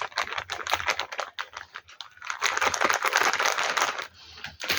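Paper and glue being handled for a paper craft: a quick run of small clicks and rustles that thickens into steady rustling about halfway through.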